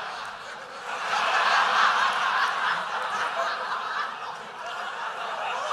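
Theatre audience laughing, the laughter swelling about a second in and carrying on.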